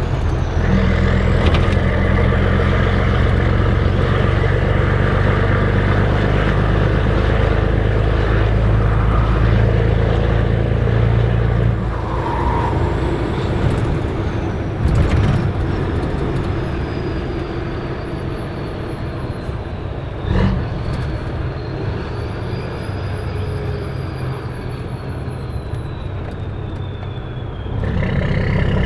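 Volvo FH16 520's 16-litre straight-six with an open exhaust pipe, heard from inside the cab: a heavy, steady drone under load for about twelve seconds, then the engine eases off and runs lighter while a high turbo whistle slowly falls in pitch. A short burst of noise and a sharp click come in the middle, and the heavy drone returns near the end as the truck pulls again.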